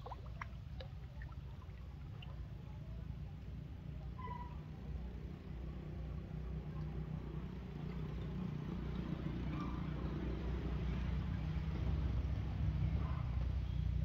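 Duckling peeping in short, scattered calls over a low motor-like rumble that grows louder through the second half.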